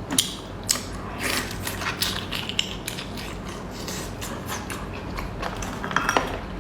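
Seafood being eaten and handled: an uneven run of wet clicks and crackles from chewing and working the shellfish meat.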